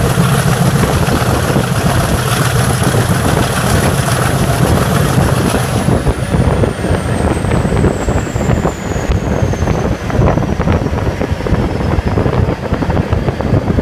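Class 50 diesel locomotive's English Electric 16-cylinder engine running under power, heard from the cab window with a deep low rumble and a thin high whistle. About six seconds in, the whistle starts falling steadily in pitch and the rumble eases.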